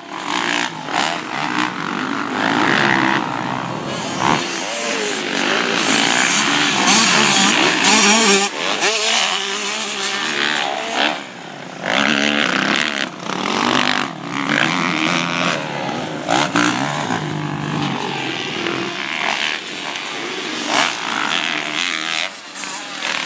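Motocross dirt bike engines revving as the bikes ride the track, the pitch rising and falling with the throttle.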